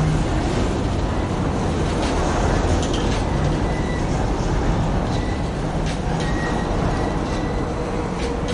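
Freight cars of a passing train, boxcars and gondolas, rolling by close at hand: a steady rumble of steel wheels on the rails. A faint high-pitched tone comes and goes, and there are a few sharp clicks.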